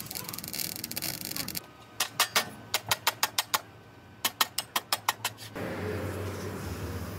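Welding torch crackling as a steel patch is welded onto a van's rusted lower body panel, then two runs of sharp metallic clicks, about three or four a second, as a strip of sheet metal is worked by hand, then a steady noisy hum.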